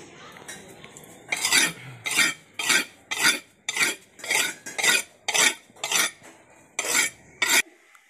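Steel billhook (koduval) blade being sharpened by hand on a stone grinding slab: about eleven scraping strokes, roughly one every half second, starting just over a second in and cutting off abruptly near the end.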